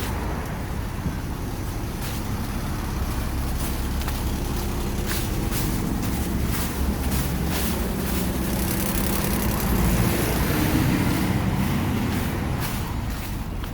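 Road traffic, with the engine of a heavy vehicle such as a truck or bus running close by. Its steady low rumble grows louder about two-thirds of the way through.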